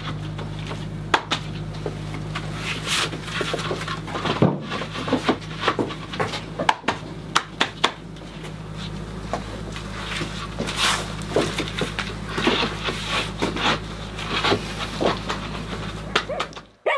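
Dried, unfired clay roof tiles clacking and scraping against one another as they are set by hand in rows in a kiln for firing: irregular sharp clicks and knocks over a steady low hum.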